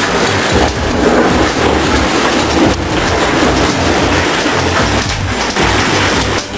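Heavy hail pelting a house's roof and windows: a loud, dense, steady roar.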